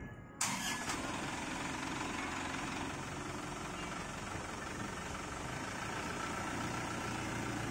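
Box truck's engine starting up about half a second in, then running at a steady idle.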